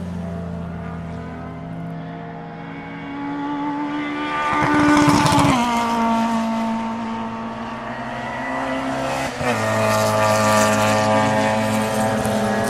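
Race car engine running hard: its pitch climbs to a loud peak a little before halfway, then drops suddenly, and shifts again about three-quarters of the way through.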